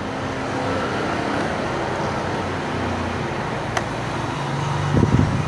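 A motor vehicle engine running steadily, its low hum shifting lower and growing louder near the end, with one sharp click a little under four seconds in.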